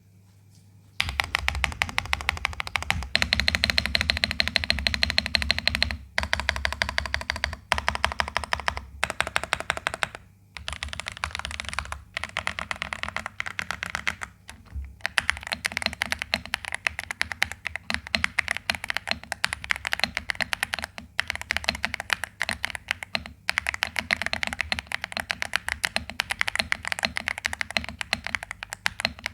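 Typing on a Vortexseries XERA Series 87 mechanical keyboard with unmodified stock Outemu Jade White switches: a fast, continuous clatter of keystrokes that starts about a second in and breaks off in a few short pauses.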